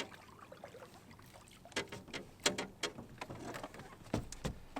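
Clicks and knocks of a small catfish being unhooked and handled in a boat, with a low thud about four seconds in.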